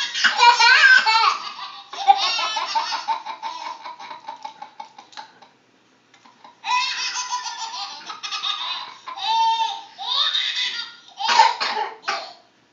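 A young child laughing hard in rapid, high-pitched bursts, breaking off for about a second midway before laughing again.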